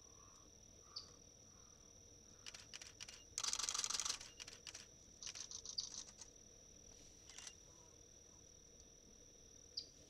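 Faint steady high-pitched drone of an insect, broken by scattered clicks and a short rasping burst of noise a little past three seconds in.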